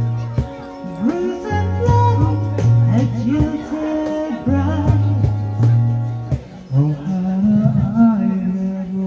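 Folk band playing a song live: a voice sings over held low notes, with a steady percussion beat.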